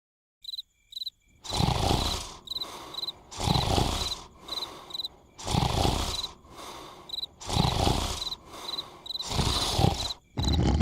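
Cartoon snoring: a loud rasping snore about every two seconds, five in all, each followed by a softer breath out, over steady cricket chirps.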